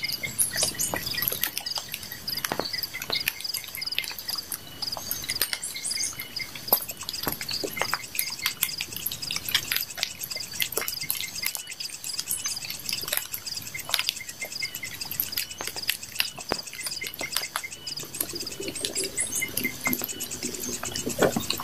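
Wood campfire crackling with scattered sharp pops, over steady chirping of rainforest insects and birds. Near the end a tarp rustles as it is handled.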